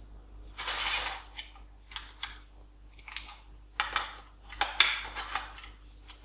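Ares Amoeba M4 airsoft rifle being handled: light clicks and rattles of its parts with a brief scrape under a second in. The sharpest clicks come about four to five seconds in, as the adjustable stock is worked.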